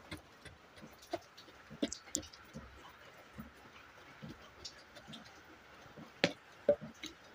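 Wooden stick tamping sawdust packed into a clay stove around a glass bottle: scattered soft taps and scrapes, with two sharper knocks a little after six seconds in.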